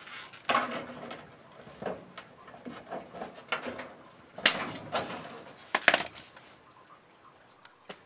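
Irregular metallic clinks, knocks and short scrapes of screws and sheet-metal furnace parts being handled while screws are lined up. The sharpest knocks come about half a second in, and again around four and a half and six seconds.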